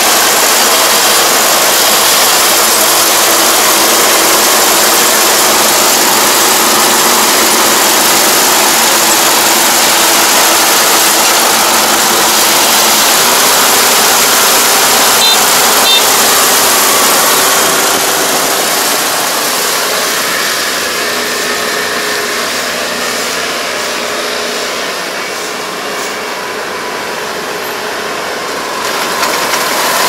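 Kubota ER470 combine harvester running, a steady dense engine and machinery noise. It grows fainter about two-thirds of the way through as the machine crawls away, then swells again near the end.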